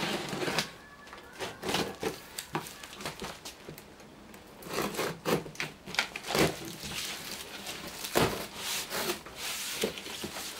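Hands rubbing and scraping over a large taped cardboard box while working its tape and flaps open, with scattered irregular knocks and scrapes, the loudest about six and eight seconds in.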